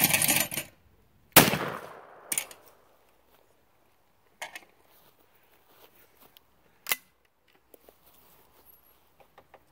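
A single shot from a Baikal .410 shotgun at a thrown clay pigeon about a second and a half in, with a brief noisy burst just before it. A few sharp metallic clicks follow as the gun is handled.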